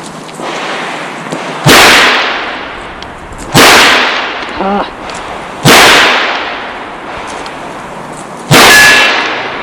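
Four .38 Special shots from a Chiappa Rhino revolver, fired one at a time about two seconds apart, each a sharp crack that dies away over about a second.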